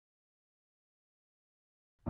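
Digital silence: a gap with no sound at all.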